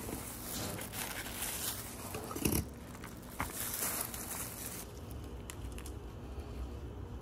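Hand-cranked rotary drum grater shredding a block of cheese: a crunching, scraping rattle with small clicks that stops about two and a half seconds in, followed by fainter handling noises.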